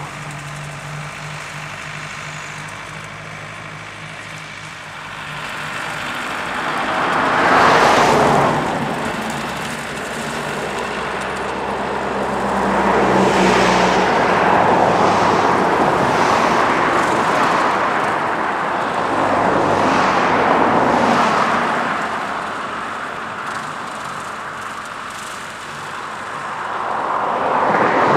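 Renault Ceres tractor's diesel engine running while it pulls a topper through rushes. The sound swells louder and fades several times as the tractor works across the field.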